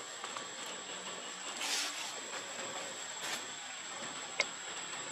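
Steady outdoor hiss with a thin, constant high whine. Two brief rustles of dry leaves come about a second and a half apart, and there is a single sharp tick near the end.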